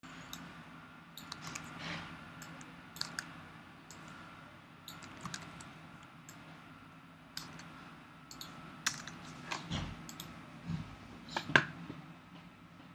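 Computer keyboard typing: irregular, scattered key clicks, with a few louder strokes near the end.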